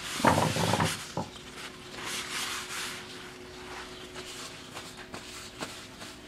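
Paper shop towels rubbing and wiping across a wooden workbench, with a few light clicks, over a faint steady hum. A short, louder noise comes in the first second.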